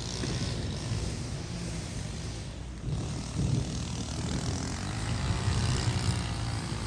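Lawn mower engine running steadily, a low, uneven drone.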